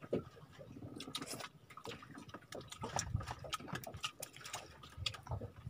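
Quiet, irregular small clicks and taps of people eating with their hands from plastic plates and tubs, picking apart fish and rice.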